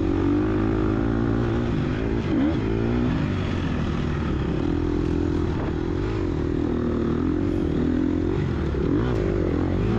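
Gas Gas EX250F dirt bike's single-cylinder four-stroke engine running at low, varying throttle, its revs rising and falling in short swells over steady wind and ride noise.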